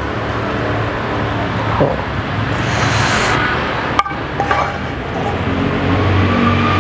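Wooden spatula scraping and tapping a frying pan as stir-fried squid is served onto a plate, with two sharp clicks about two and four seconds in. Under it runs a steady rumble of road traffic.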